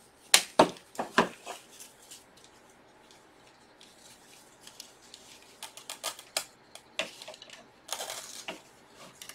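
Hand handling of artificial flower stems and picks being worked into a wicker basket arrangement: a quick run of sharp clicks in the first second or so, then scattered lighter clicks and rustling, with a brief burst of rustling near the end.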